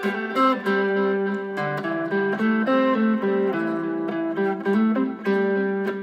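Fender Stratocaster electric guitar playing a melodic line of quick single picked notes over a held low note, with a clean, effected tone.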